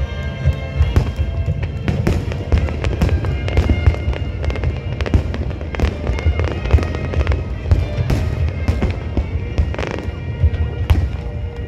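Fireworks display: a rapid, continuous series of sharp bangs and crackles from bursting shells over a deep rumble, with music playing underneath.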